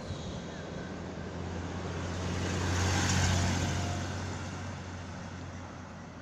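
A vehicle passing close by: a steady low engine hum and a rushing noise that swell to a peak about three seconds in, then fade away.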